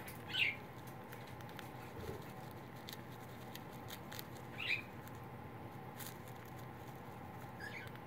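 Cockatiel chewing and tugging at a paper-towel and Timothy-hay foraging toy: faint crinkling and scratching of paper and hay, with scattered small beak clicks. Three brief high chirps come through, near the start, about halfway and near the end.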